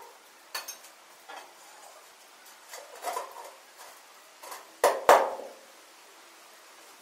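Metal clinks and knocks from a tool striking a metal bucket: a handful of separate strikes, the two loudest close together about five seconds in.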